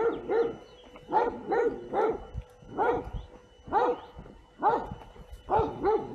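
A dog barking repeatedly: short, pitched barks in singles and quick pairs, about one a second.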